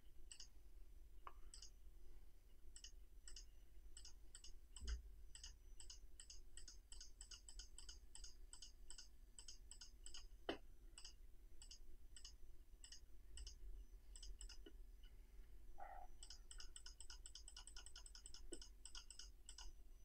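Faint computer mouse button clicks, irregular at first and then a quick run of about four or five a second near the end, with a couple of slightly louder soft knocks.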